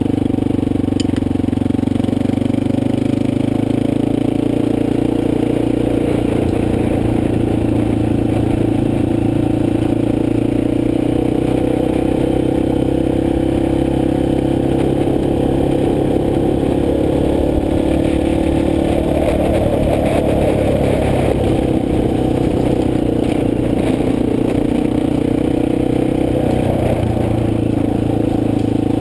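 Motorcycle engine running steadily while the bike is ridden along, its note lifting briefly about two-thirds of the way through.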